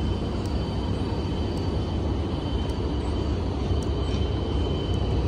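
Siemens Charger diesel-electric locomotive standing at the platform with its 16-cylinder diesel engine running: a steady low rumble with a steady high-pitched whine over it. No horn sounds.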